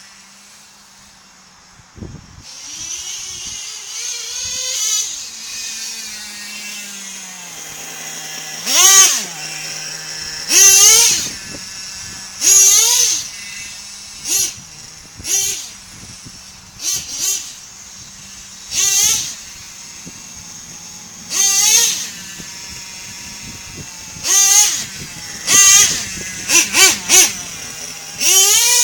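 Electric motor of a radio-controlled monster truck whining in short bursts, each sweeping up in pitch and back down as the throttle is punched, about a dozen times, coming faster near the end.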